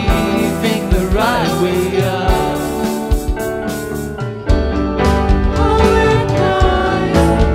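Live pop band with a man and a woman singing into microphones over a Korg keyboard, electric guitars and drums. About four and a half seconds in, the bass and drums come back in and the band gets louder and fuller.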